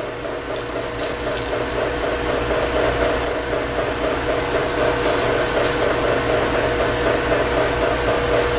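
NutriBullet blender motor running with a steady whine as it pulverizes cornflakes into crumbs, with scattered ticks over it. It grows louder over the first few seconds, then holds steady.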